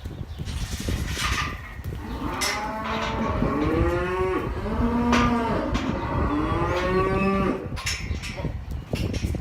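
Weaned calves bawling: several long, overlapping calls through the middle of the stretch, with scattered knocks and clatter around them.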